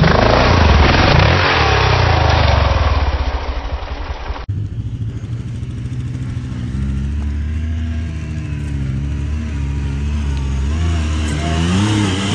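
Honda CRF dirt bike engine revving hard as it climbs a rut. About four seconds in, it cuts to a side-by-side UTV's engine running and revving, its pitch rising and falling.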